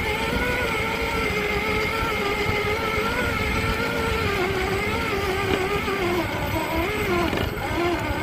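Electric motor and gear whine of a scale RC crawler truck, heard close from a camera mounted on the truck as it drives over sand. The whine wavers up and down in pitch with the throttle, over a steady low rumble.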